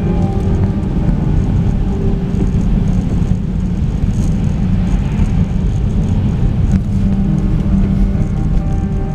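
Steady low rumble of a car's road and engine noise inside the cabin, driving on a wet road. Orchestral music drops away early on and comes back in near the end.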